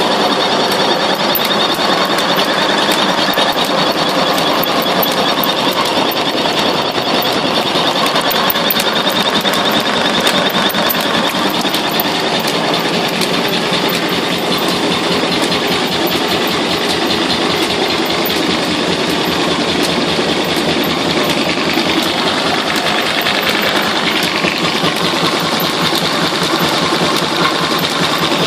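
Old sawmill machinery driven by a Strömberg electric motor, running steadily under the floor with the sawdust removal mechanism: a fast, even mechanical clatter over a constant hum.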